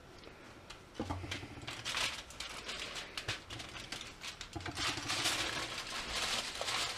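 Aluminium tin foil crinkling and rustling as it is peeled back off a baking tray of roasting onions, with a soft knock about a second in and a run of crackly clicks that gets busier near the end.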